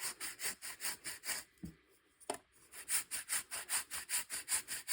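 A chalk block being grated: quick rhythmic rasping strokes, about five a second. About a second and a half in the strokes stop for roughly a second, with two light knocks, then resume.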